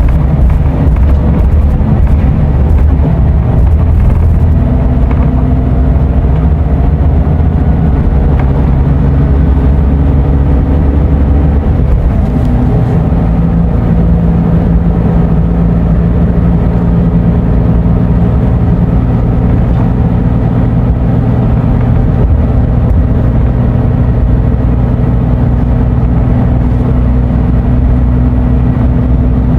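Scania Euro 6 coach's diesel engine running steadily under way, heard from on board the bus; its note shifts twice, about 4 seconds and 12 seconds in.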